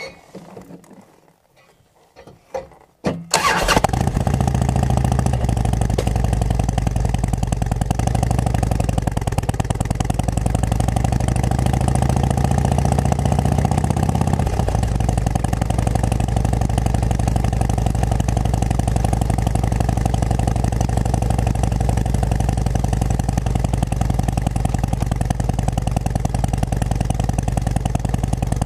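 V-twin engine of a 2006 Harley-Davidson Road King Classic, fitted with Cycle Shack aftermarket pipes, starts suddenly about three seconds in after a few faint clicks, then runs loud and steady. Its pitch climbs slowly and then drops sharply about fourteen seconds in.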